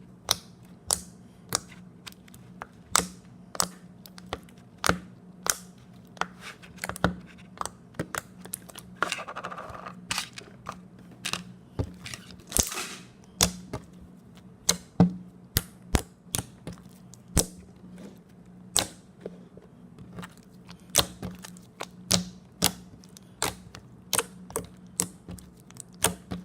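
Slime being squeezed and pressed by hand, making a string of sharp clicking pops as trapped air bursts out, irregularly one or two a second. There are a couple of longer squelches about a third and halfway through.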